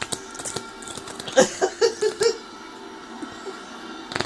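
A baby's voice: a quick run of four or five short pitched sounds about a second and a half in, among light clicks and taps.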